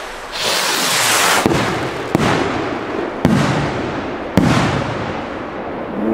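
Classic and Funke firework rockets bursting overhead: a rushing hiss, then four sharp bangs over about three seconds, each with a rumbling tail.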